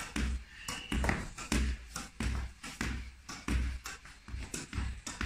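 Squash ball being drilled against a wall with a racket: a rapid run of sharp taps as the ball strikes the strings and the wall, several a second.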